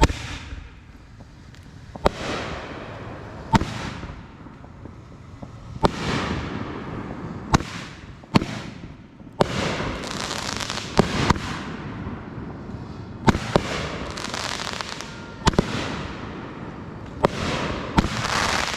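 Consumer aerial fireworks going off in quick succession: a steady string of sharp bangs, one every second or two, each trailing off in a fading hiss and crackle.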